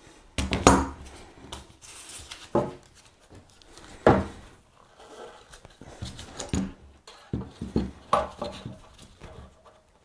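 A small clamp and thin sheet metal being handled and tightened onto a carbon bike frame to press on a fresh resin patch. The sound is a run of irregular clicks, knocks and scrapes, with a few short squeaky sounds among them.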